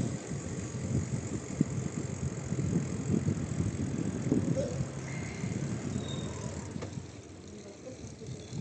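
Low, gusty rumble of wind buffeting the microphone and tyres rolling on the road while cycling, easing off for the last second or so.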